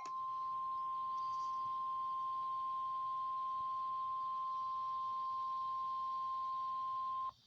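NOAA Weather Radio warning alarm tone: a single steady 1050 Hz tone held for about seven seconds, then cutting off abruptly. It signals that an emergency alert broadcast, here a severe thunderstorm warning, is about to follow.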